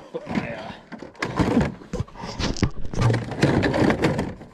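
Plastic hood of a 1997 Arctic Cat ZR600 snowmobile being lowered and fitted into place: a run of irregular knocks, scrapes and rattles.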